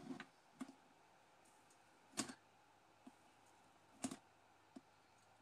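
A handful of short, sharp clicks, the loudest about two and four seconds in, from a soldering iron tip touching the metal vase cap and solder joints of a stained-glass lampshade as the cap is tacked in place.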